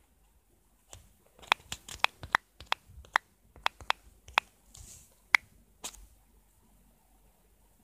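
A run of about a dozen sharp clicks or taps, irregularly spaced, over about five seconds, then quiet.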